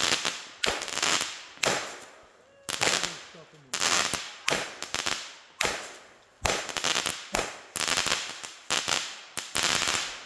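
A consumer firework firing a rapid string of shots, about one a second. Each shot is a sharp report that tails off in a fading hiss and crackle.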